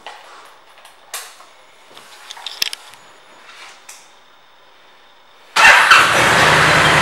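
A few faint clicks, then about five and a half seconds in the 2012 Honda Fury's 1312 cc V-twin engine starts suddenly and loudly and keeps running.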